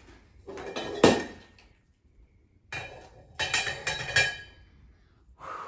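Knocks and clinks of flat-pack coffee table parts being handled during assembly: one sharp knock about a second in, then a quick run of clicks and clacks a couple of seconds later.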